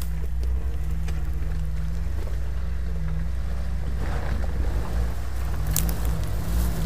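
Jeep Wrangler TJ engine running low and steady as the Jeep crawls up a rocky gully, with a short rougher patch about four seconds in and a sharp knock near six seconds.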